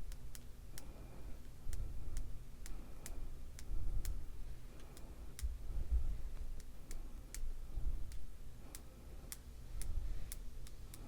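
Light, sharp taps of a paintbrush, roughly two or three a second in an uneven rhythm, flicking watered-down white acrylic paint into a spatter over a paper page. A faint low rumble of handling sits underneath.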